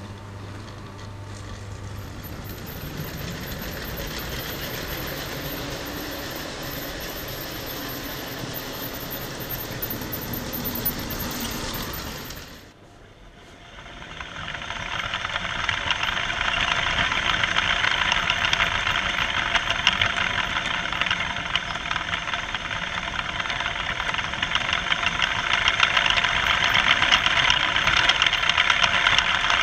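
Motorised clamp-brick toy trains running on plastic track: a continuous whir and rattle of motors and plastic wheels. After a brief dip near the middle it comes back louder and closer, heard from a camera riding on the train.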